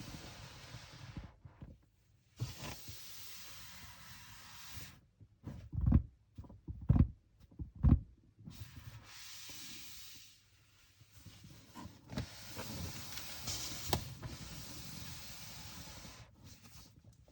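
A cardboard product box being handled: soft rubbing and scraping, with three heavy thumps about a second apart midway and a few sharp clicks later.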